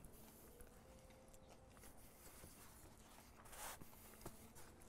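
Near silence with a faint steady hum; about three and a half seconds in, a short ripping rasp of a paper towel being torn from a roll, followed by a single click.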